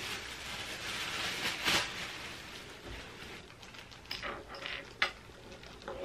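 Plastic packaging wrap crinkling and rustling as it is handled and pulled off furniture parts, fading after about two seconds into a few light taps and clicks, with one sharper click near the end.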